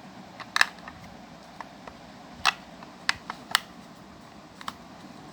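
AA batteries being fitted into the plastic battery compartment of a Seiko QHP005A clock: several sharp, irregular plastic clicks and snaps.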